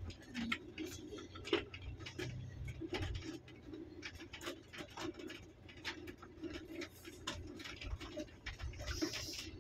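Car rolling slowly along an unpaved desert track, heard from inside the cabin: irregular clicks and crackles of grit and stones under the tyres over a low, steady engine hum.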